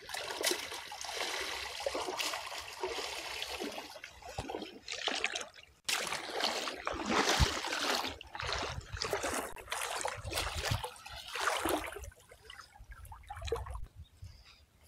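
Shallow pond water sloshing and splashing around a person wading through it with a fishing net, in uneven surges. It is cut off abruptly about six seconds in, returns in surges, and quietens in the last few seconds.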